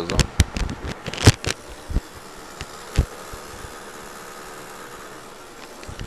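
A handled clip-on microphone clicks and knocks for about the first two seconds. Then comes the steady whirring of an MSI GP65 Leopard gaming laptop's CPU fan, an unintended noise that is the sign of something wrong with the fan, cause not yet known.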